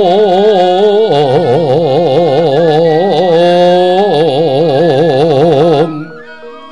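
Javanese gamelan music with a voice singing long held notes with a wide, fast vibrato. The singing breaks off about six seconds in, leaving the softer instruments.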